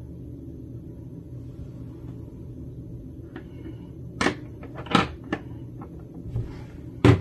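A few sharp clicks and taps from small hard objects being handled, about four and five seconds in and again near the end, over a low steady hum.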